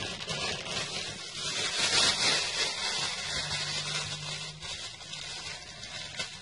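Steady rubbing and scraping noise of hands working craft materials: the clay-covered ball and its styrofoam stand, and a lump of red modelling clay being handled.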